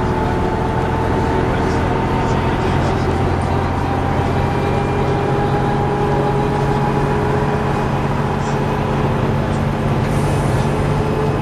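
MCW Metrobus's Gardner diesel engine running steadily, with a steady whine above the engine note.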